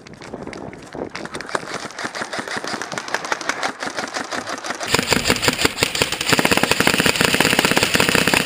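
Airsoft electric rifles firing on full auto, a fast even rattle of rapid shots. It grows much louder about five seconds in and again about a second later.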